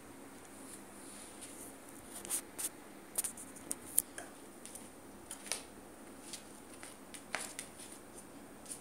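A kitten batting and grabbing at a yellow toy dangled on a string over a rug: scattered light clicks and rustles, irregular and mostly from about two seconds in, over a faint steady hiss.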